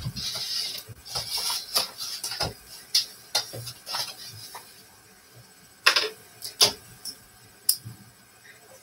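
Handling at a painting easel: paper rustling for the first couple of seconds, then a scatter of sharp clicks and knocks, the loudest about six seconds in.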